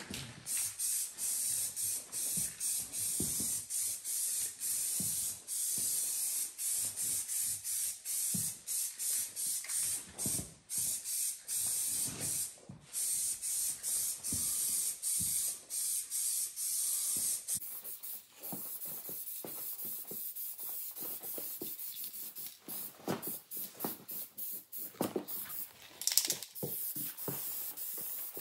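Aerosol spray paint can hissing in repeated passes over a van hood, the spray stopping and starting many times. About 17 s in, the hiss turns to shorter, lighter bursts.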